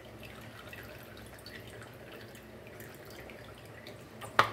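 Lime juice dripping from a plastic squeeze bottle into a bowl of melted butter: faint drips, with one sharp click near the end.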